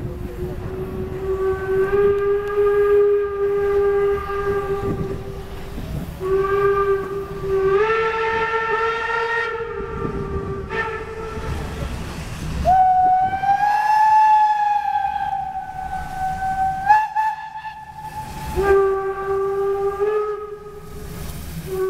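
Steam locomotive whistles blown in a series of long blasts, mostly on a lower note, sometimes two notes together, with a higher-pitched whistle held for about four seconds in the middle. Under them runs the low rumble of the double-headed steam train, 18 201 and 35 1019, as it comes in.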